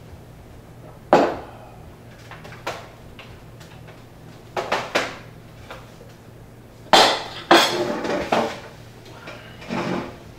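A mug and a plate set down on a wooden table and a carton handled: a series of separate clinks and knocks of crockery on wood. The loudest two come close together about seven seconds in.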